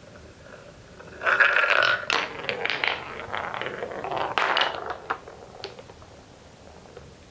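A wooden marble faintly circling a wooden funnel bowl, then, about a second in, dropping through and rolling down a wooden track in a loud rush of rattling and clacking for about four seconds. A few separate clicks of wooden balls knocking together follow.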